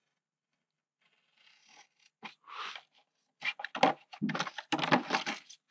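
Sticky outdoor carpet tape being peeled and pressed down by hand onto a plastic mould: irregular ripping and scraping sounds that start about a second and a half in.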